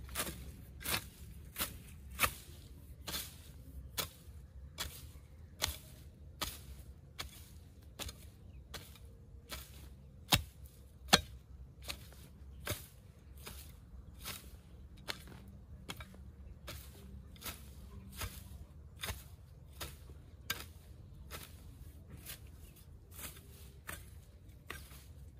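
A hand tool striking again and again at a steady working pace, about four blows every three seconds, with two much louder blows about ten and eleven seconds in.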